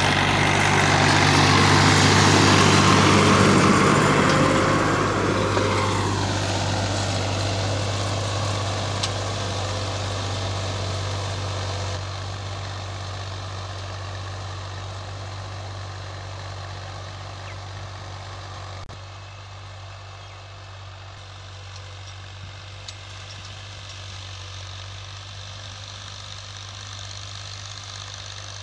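Fiat 480 tractor's three-cylinder diesel engine running steadily under load. It is loudest at first, its note drops about five seconds in, and it then fades steadily as the tractor moves away.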